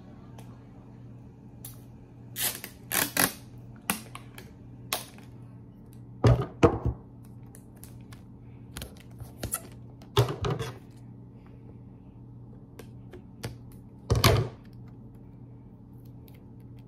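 Clear sticky tape being pulled, peeled and torn by hand, with paper handled alongside: scattered sharp clicks and short crackles, and a few louder knocks against the table.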